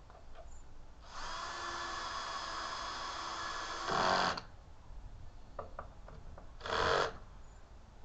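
Electric drill running steadily for about three seconds with a louder surge at the end, then a second short burst a few seconds later, fastening the metal plate for the shed door's latch bar.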